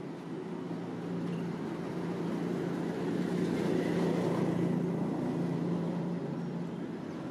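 Street traffic: a motor vehicle's engine running with a steady hum that grows louder about three to five seconds in and then eases off.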